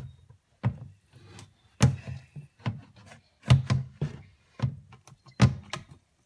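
A plastic litter box holding a baking soda and vinegar soak is being shaken around. It gives a string of irregular knocks and thuds, about one or two a second.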